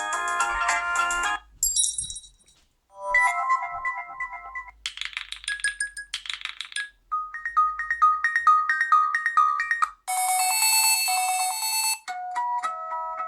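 Nokia 6 stock ringtones previewed one after another on the phone: a run of short electronic melodies and chimes, each cut off after one to three seconds and followed at once by the next, about seven in all.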